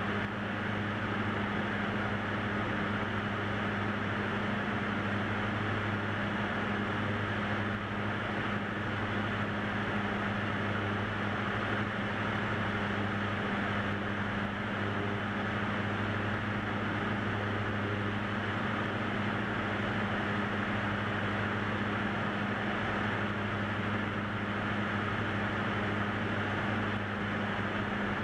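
Single-engine light aircraft's engine and propeller running steadily in flight, heard from inside the cockpit as an even drone with a constant low hum.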